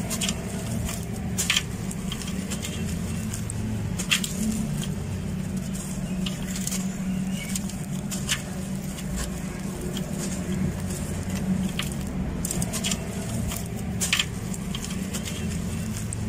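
Gloved hands crushing and crumbling dry sand-cement lumps into a basin: gritty crunching and crackling, with sharper cracks now and then as pieces break. A steady low rumble runs underneath.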